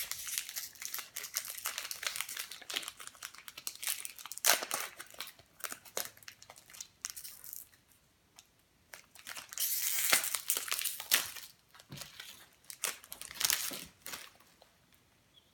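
Foil wrapper of a Pokémon TCG Burning Shadows booster pack crinkling as it is torn open by hand, in irregular crackly bursts with a pause of about a second and a half about halfway through.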